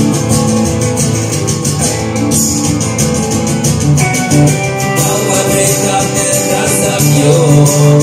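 Acoustic guitar strummed in a steady rhythm, played live as the instrumental stretch between sung lines of a song.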